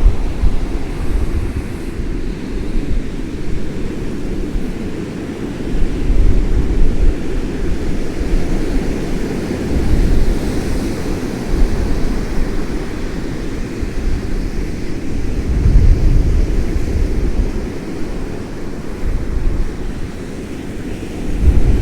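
Storm-force wind buffeting the microphone in gusts, over the rush of heavy North Sea waves rolling in and breaking.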